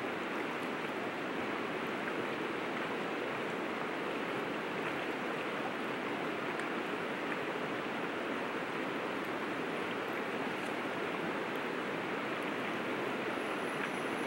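River water flowing over rocks: a steady, even rush.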